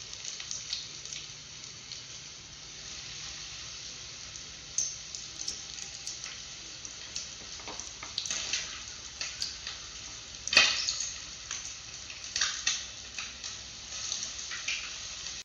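Oats-coated chicken pieces deep-frying in hot sunflower oil in a pan: a steady sizzle with scattered crackles and pops, the sharpest about ten and a half seconds in.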